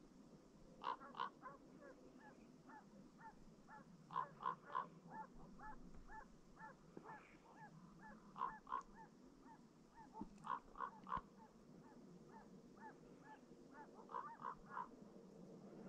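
Faint Russian hound baying on a hare's trail: a long, steady run of short yelping calls, about three or four a second, louder in clusters.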